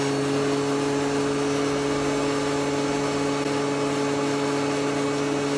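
DeWalt DW735 thickness planer running with a steady hum that holds one pitch throughout.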